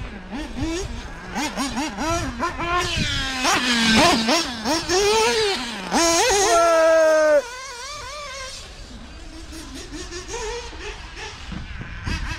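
Mugen MBX7R 1/8 buggy's 3.5 cc Ultimate M5 nitro engine revving up and down as it is driven, the pitch rising and falling with the throttle. About six seconds in it holds a steady high note at full throttle for over a second, then cuts off suddenly and runs fainter for the rest.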